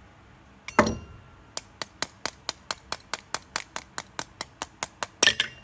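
Hand tools and metal parts being worked during carburetor disassembly on a small engine: a single knock about a second in, then a steady run of sharp, evenly spaced clicks at about four or five a second, then a clatter near the end.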